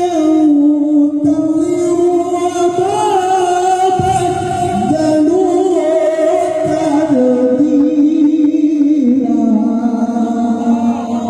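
A male qari reciting the Quran in melodic tajwid style, drawing out one long, ornamented held note. His voice slides and turns in pitch, settling lower near the end.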